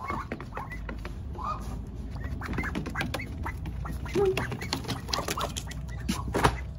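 Five-week-old ducks giving short, scattered quacks and calls, with a steady sprinkling of sharp taps and clicks.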